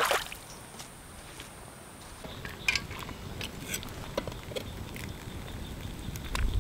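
A spoon stirring soup in a cast iron Dutch oven over a campfire: irregular light clicks and scrapes of metal on the pot, with the fire crackling. A brief rushing noise comes right at the start.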